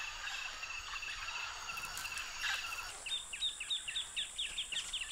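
Amazon rainforest ambience: a steady high drone of insects, and from about three seconds in a fast run of short falling chirps, about seven a second.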